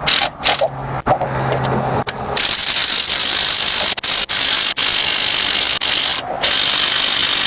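A power tool working on a car wheel's lug nuts during a roadside tyre change. It gives a steady low hum for a couple of seconds, then a loud even whir that starts abruptly, breaks off briefly about six seconds in, and starts again.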